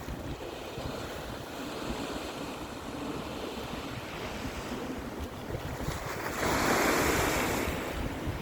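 Wind-driven lake waves breaking against the shore, with one big wave crashing and washing in about six seconds in. Wind buffets the microphone throughout.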